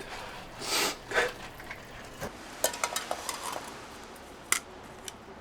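Light clinks, knocks and short rustling swishes of small hard objects being handled, with a sharper click near the end.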